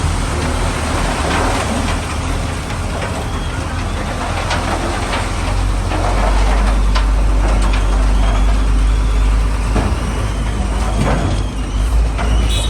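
Heavy diesel vehicle engine running with a deep, steady rumble that gets louder about six seconds in, with scattered short knocks over it.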